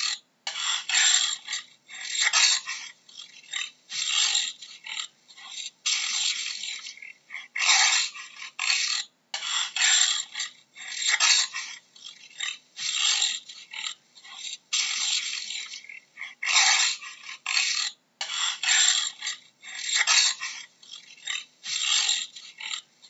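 Jaguar giving its sawing call: a long series of rough, rasping grunts, about one a second, some coming in quick pairs.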